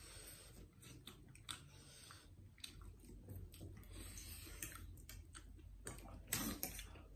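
Faint eating sounds from people eating noodles close to the microphone: chewing and slurping, with scattered light clicks of forks against plates.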